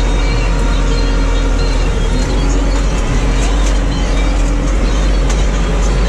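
Tractor diesel engine running steadily under way, heard from inside the cab.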